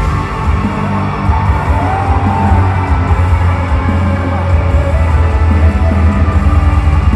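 Loud heavy metal music with electric guitar over a strong, deep bass, with a short sliding note about two seconds in.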